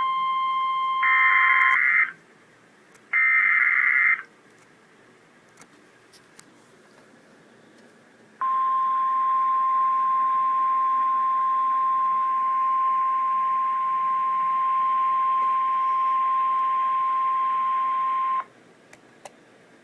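Emergency Alert System weather alert over NOAA Weather Radio. Near the start come two harsh digital data bursts of the SAME header, each about a second long with a second's gap between them. About eight seconds in, the single steady warning alarm tone sounds over radio hiss for ten seconds and cuts off abruptly.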